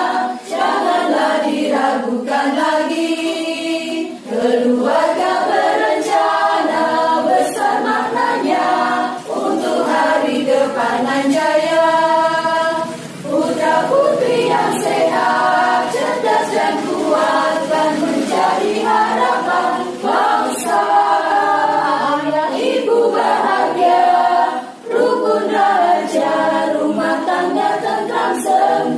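Women's choir singing a march song, phrase after phrase with short breaks for breath.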